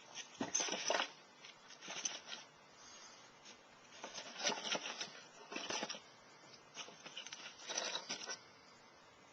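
Packaging being handled and unwrapped in short bursts of rustling and crinkling, with small clicks and scrapes.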